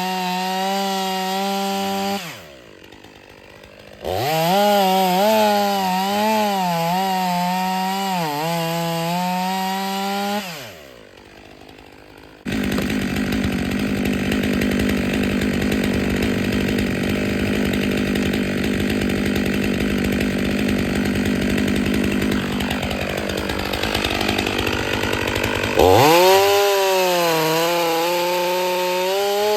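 A Stihl 500i two-stroke chainsaw cutting firewood. It runs at full throttle, its pitch wavering as the chain bites into the wood. It drops to idle twice for a couple of seconds, then runs on through a long, steady cut.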